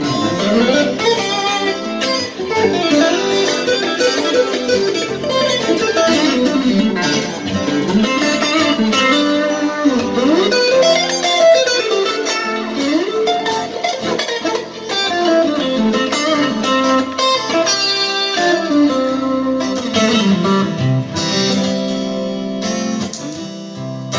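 Guitar playing a calm, melodic passage through a compressed acoustic-guitar sound patch, with notes sliding up and down in pitch.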